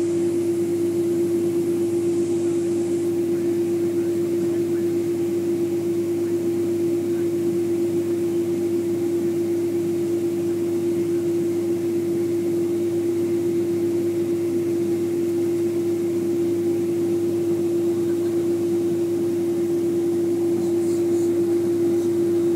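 Steady cabin drone inside a Boeing 767-300 on the ground with its engines at idle, carrying one strong, unwavering hum note over an even rush of air noise.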